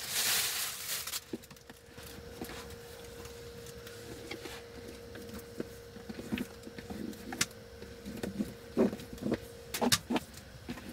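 A brush scrubbing a black leather work boot for about the first second. Then small clicks, taps and rustles as the boot is handled and its laces are drawn through the eyelets, with a few louder knocks and rustles near the end and a faint steady hum underneath.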